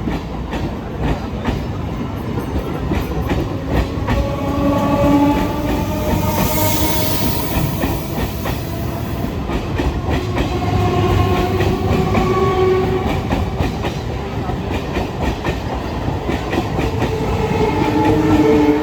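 Electric multiple unit (EMU) train running past at speed, its wheels clattering rapidly over rail joints under a loud rumble, with tones sliding slowly lower through the middle. A train horn begins to sound near the end.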